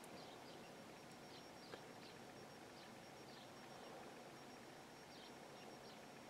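Near silence: faint room tone with a few faint, short high chirps scattered through it.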